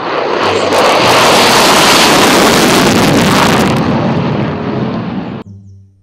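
F-16 fighter jet taking off at full power with its afterburner lit: a loud jet roar that builds over the first second, then fades and stops abruptly about five and a half seconds in.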